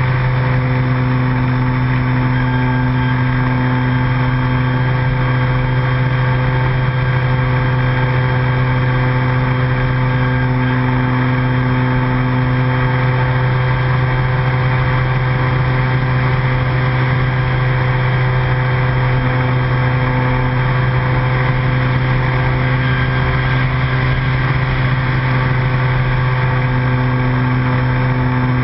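RC airplane's motor and propeller droning steadily at a constant pitch, heard close-up from the plane's onboard camera.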